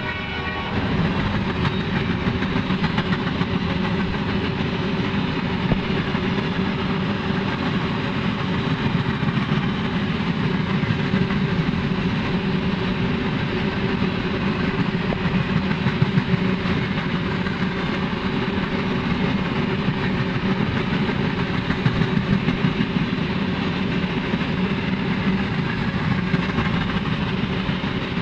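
Freight train cars rolling past close by: a steady rumble and rattle of steel wheels on the rails, with a few louder clanks.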